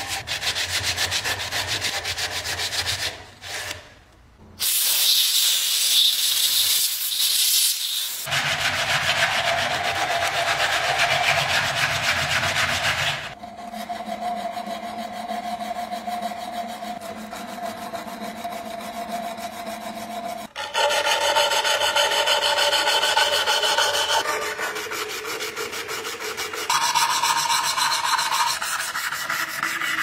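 Old wood being scraped and hand-sanded, cut into several passages. A blade scrapes inside a slot in a wooden post, then an abrasive strip is pulled back and forth around turned wooden parts, a rapid rasping rub. Steady tones sound through the later passages.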